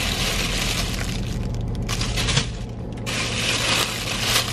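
Clear plastic packaging crinkling and rustling as it is pulled open by hand, easing off for a moment about two seconds in. A steady low hum runs underneath.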